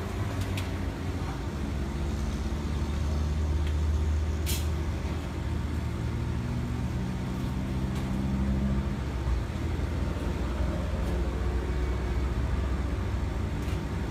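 Steady low machinery hum, with a few light clicks and knocks over it.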